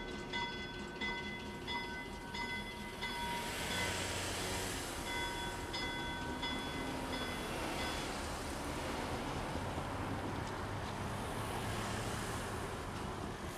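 A bell rings in steady strokes about twice a second, then fades out after about seven seconds. Two cars pass on the road, their tyre and engine noise swelling and falling away.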